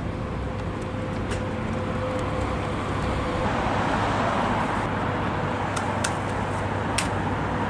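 Street traffic noise: a steady low hum with a vehicle passing that swells louder from about halfway through, and a few light clicks near the end.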